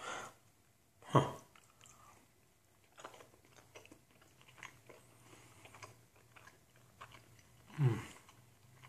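A man chewing a mouthful of barbecue brisket sandwich on a soft roll: quiet wet mouth clicks and smacks throughout. There is a short louder mouth sound about a second in, and a falling hum near the end.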